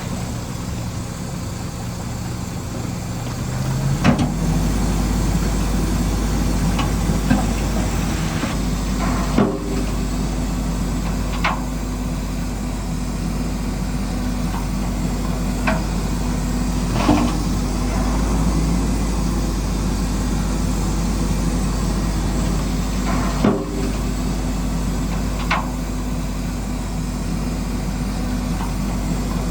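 Radio-controlled model construction machinery running with a steady motor and engine hum that grows stronger about four seconds in. About eight sharp clicks and knocks are scattered through it.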